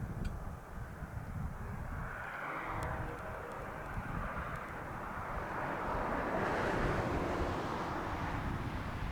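Diesel locomotive, a Union Pacific SD70ACe, droning as it approaches from a distance. It swells louder about six seconds in, over an uneven low rumble.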